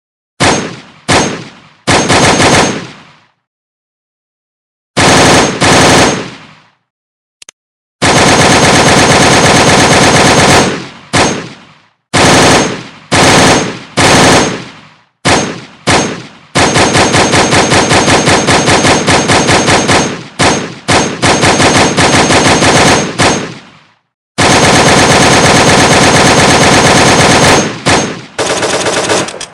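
AK-47 assault rifle firing on full auto: short bursts of a few rounds, then long sustained strings of rapid shots, each burst cut off into dead silence. A single faint click comes about seven seconds in.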